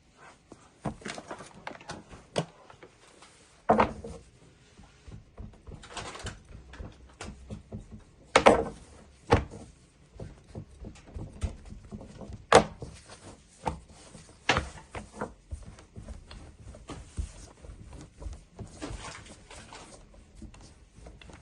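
Irregular knocks, clicks and scrapes of hands working with kitchen utensils and dishes, with a few louder knocks.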